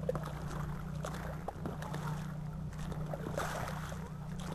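A boat's motor running steadily with a low, even hum, and faint voices now and then.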